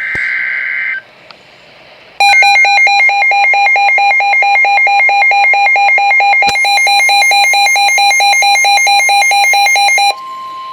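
Start of a NOAA Weather Radio alert: a short burst of SAME digital header data, then a weather radio's loud, rapidly pulsing electronic alarm beeping about five times a second. The alarm stops abruptly near the end, leaving the steady 1050 Hz warning alarm tone running.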